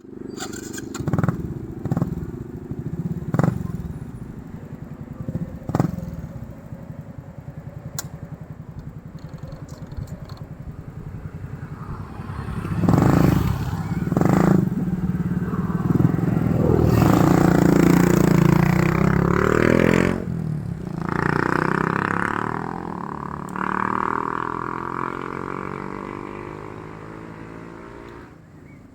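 Motor vehicle engines on a road, with a few sharp knocks in the first several seconds. A vehicle grows loud about halfway through, then passes and fades away, its pitch falling.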